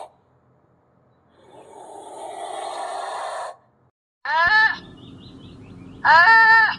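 Animal sounds: a breathy, hiss-like exhalation swelling over about two seconds, then, after a short pause, two short harsh calls about a second and a half apart.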